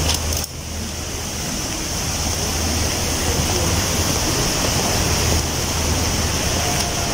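Indoor fountain running: water from a jet and a cascade splashing into its pool, a steady rushing noise with a low hum underneath.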